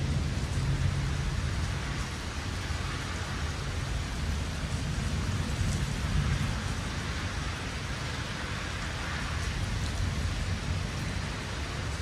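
Steady rain falling during a thunderstorm, with a low rumble underneath.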